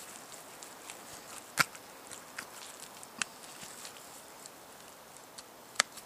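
Faint wet crackling and clicking of a hand working inside a bull elk carcass, pushing meat and membrane away from the bone to reach the tenderloin. Two sharp clicks stand out, about a second and a half in and near the end.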